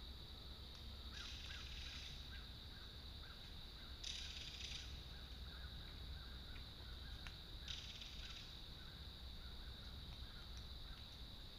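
Faint dawn woodland ambience: a steady high-pitched drone with a soft chirp repeating about three times a second, broken three times, about three seconds apart, by a brief harsh, hissy sound.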